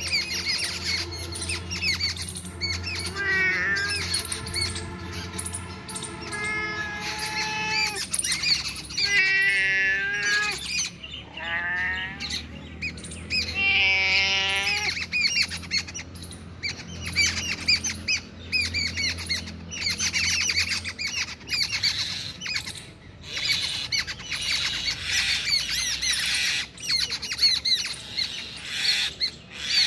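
Many birds chirping and calling throughout, with a few louder, longer calls that bend in pitch about ten and fourteen seconds in, over a low steady hum.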